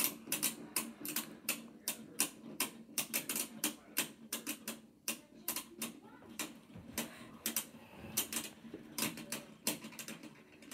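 Two Beyblade spinning tops clashing in a stadium, a rapid, irregular run of sharp clicks as they knock together. The clicking thins out after about five seconds, then picks up again in short clusters near the end.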